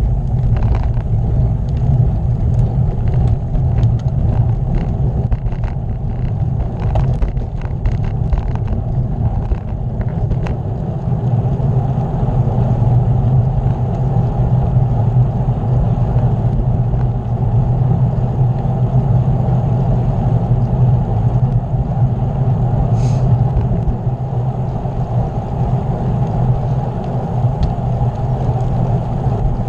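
Wind rushing over a camera microphone during a bicycle ride, a steady low rush with road noise underneath. A run of light clicks comes in the first ten seconds.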